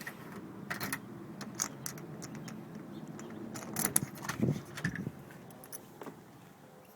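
Keys jangling with scattered clicks and knocks, and a louder clatter about four to five seconds in, over a low steady hum that fades out near the end.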